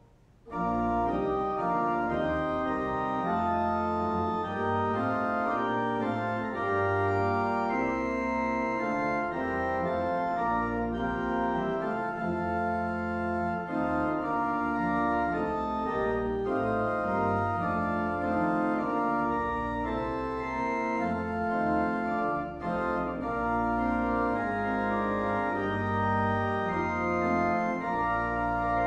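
Church organ playing sustained chords over deep bass notes, coming in about half a second in after a brief pause.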